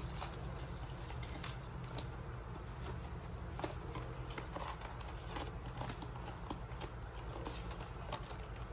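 Sun conures' claws and beaks tapping and scratching on a plastic basket and its grid liner as the birds shift about: irregular light clicks, over a steady low hum.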